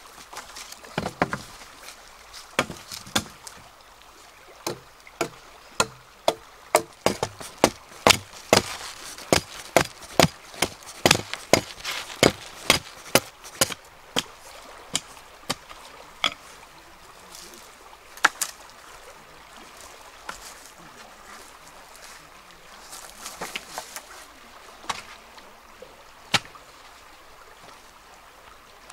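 A hatchet chopping into a bamboo pole: a run of sharp strikes, one or two a second, through the first half, then a few scattered strikes, over the steady rush of a stream.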